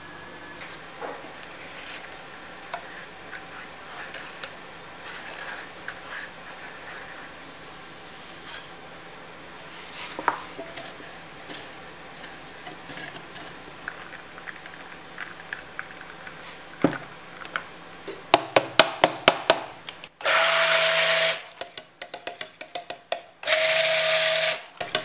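Stick (immersion) blender running in two short bursts of about a second and a half each near the end, blending cold-process soap batter. Before that, scattered light knocks and scrapes of handling.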